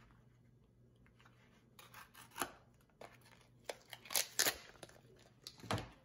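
Scissors cutting open the packaging of a pack of adhesive business-card magnets: a few sharp snips with some crackle of the pack, loudest a little past four seconds in.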